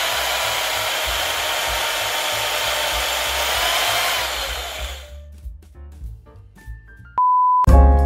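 Steady whir of an electric drill motor with a thin whine over it, fading away at about five seconds. A short single beep follows a little after seven seconds, and piano music starts just after it.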